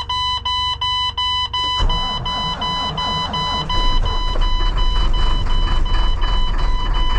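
Truck's dashboard warning buzzer beeping steadily, about three beeps a second, while the engine is cranked in bitter cold; about two seconds in the engine turns over and near four seconds it catches and runs louder under the beeping. It is a cold start without the block heater plugged in.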